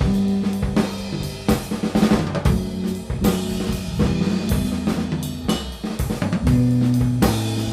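Instrumental band playing: a drum kit keeps a beat with snare, kick drum, hi-hat and cymbals under held bass and guitar notes, with no vocals.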